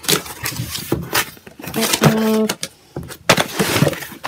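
Cardboard box being opened by hand: the lid and flaps rustling, scraping and knocking in quick irregular bursts, with a short squeak about two seconds in.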